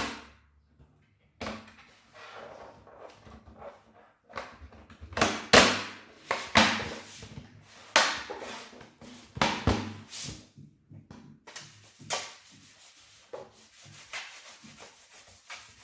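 Cloth rubbing over the plastic casing of a PS4 Pro console, wiping it down in a series of irregular strokes.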